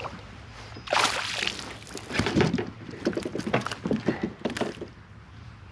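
Water sloshing and splashing against a plastic fishing kayak about a second in, followed by a run of short knocks and clicks from handling gear in the kayak.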